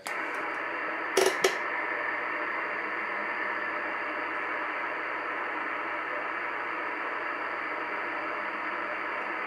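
Static hissing steadily from the speaker of a Lafayette CB base station on channel 38 lower sideband, with no station answering the call. Two short bursts of noise come just over a second in.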